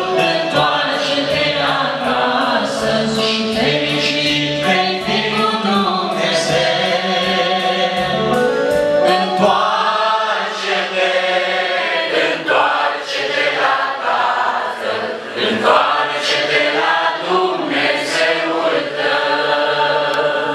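Congregation of men and women singing a hymn together.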